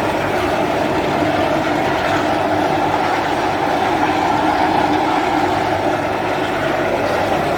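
QST3000D chain saw attachment on a Komatsu WB97S backhoe loader, running steadily with a loud, even mechanical noise that does not let up.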